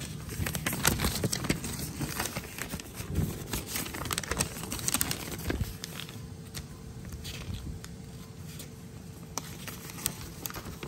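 A folded paper instruction booklet being handled and its pages flipped: crinkling and rustling with quick crackles, busiest in the first half. A faint steady hum comes in a little past halfway.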